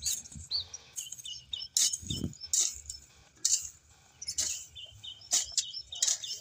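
A hoe chopping into grassy soil and roots in sharp, irregular strikes about once a second. Small birds chirp repeatedly in the background.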